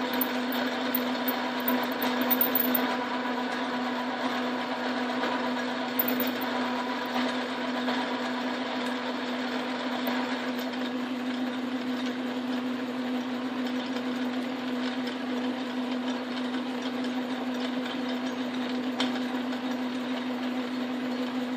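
Metal lathe running steadily in back gear while a 3/4-inch reamer cuts into the bore of the spinning workpiece: a steady motor hum with a whine above it.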